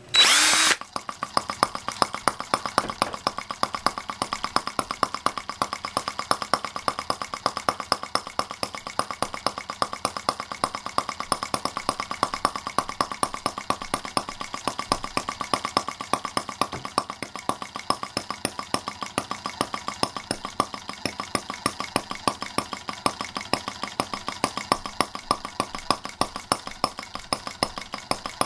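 Stirlingkit Benz R18 miniature single-cylinder gasoline engine starting with a short loud burst, then running steadily with a rapid, even firing beat.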